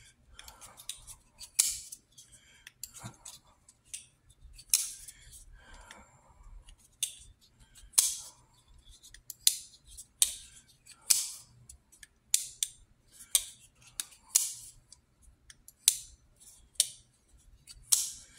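Spyderco compression-lock folding knives being flicked open and closed over and over, each swing ending in a sharp metallic click as the blade snaps into place, roughly one click a second.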